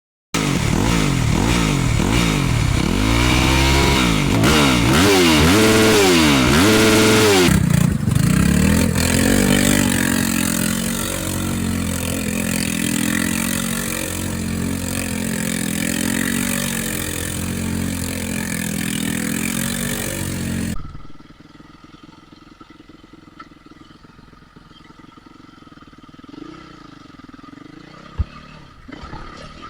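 Dirt bike engines revving hard, pitch rising and falling again and again, then running steadily at high revs. About twenty seconds in, the sound cuts to a much quieter, distant engine note with a few clicks.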